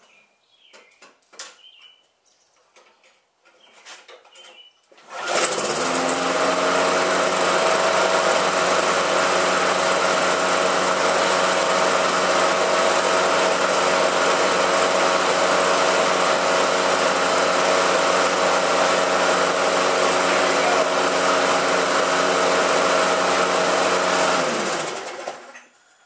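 Briggs & Stratton push-mower engine catching about five seconds in, then running at a steady speed on fresh gas and a freshly cleaned carburetor. Near the end it winds down and stops.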